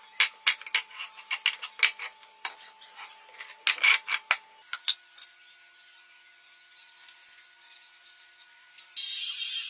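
A quick string of sharp clicks and knocks for the first four to five seconds, then a quiet stretch. Near the end a small bench-top table saw starts cutting a board with a loud, steady noise.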